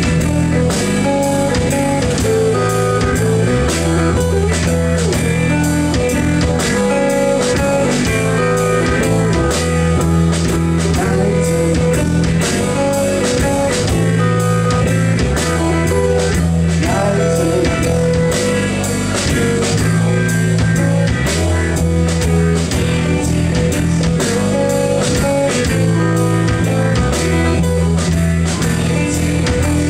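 Live rock band playing loud: electric guitars over a drum kit keeping a steady, driving beat.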